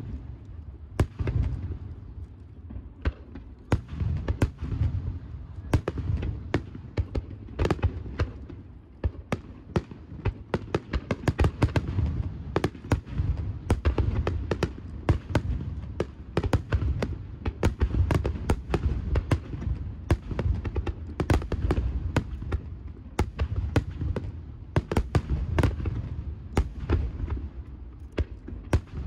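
Aerial firework shells bursting in quick succession: sharp cracks, several a second, over a continuous low booming rumble.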